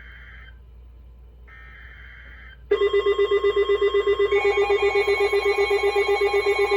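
Two short bursts of buzzing digital data tones from a NOAA Weather Radio broadcast, the SAME header that opens an Emergency Alert System message. About three seconds in, a weather alert radio's loud alarm starts: a rapidly pulsing beep, with more tones joining about a second later, signalling that a new warning is coming in.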